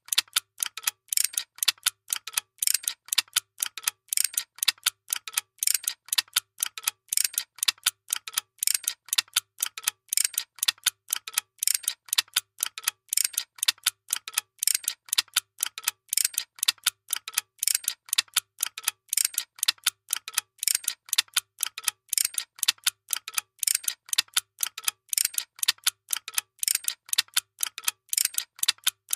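A workshop machine running with a steady, fast mechanical clicking, several sharp clicks a second in a repeating pattern, over a faint low hum.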